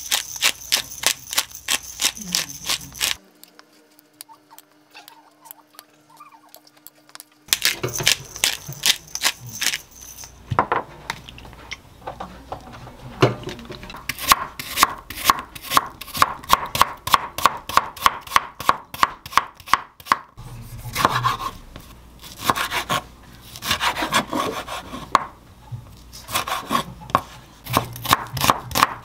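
A hand-twisted salt and pepper grinder grinding in quick, even clicks. It stops for a few seconds, then starts again. From about ten seconds in, a chef's knife chops on a wooden cutting board in quick, regular strokes, slicing apple, tomato and onion.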